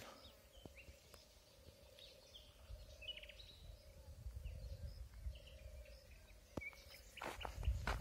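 Small birds chirping faintly and sporadically over quiet outdoor ambience with a faint steady drone and low wind rumble on the microphone; near the end, footsteps crunch on a dirt path.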